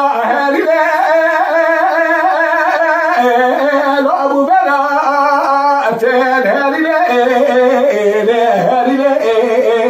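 A man singing dengbêj, unaccompanied Kurdish narrative song, in long held, ornamented notes that step down in pitch over the phrase.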